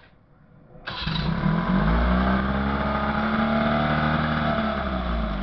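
Johnson 20 hp two-stroke outboard motor starting up about a second in and running, its pitch rising and then easing back a little. The rebuilt engine runs on a replacement two-ring piston in place of the original three-ring one.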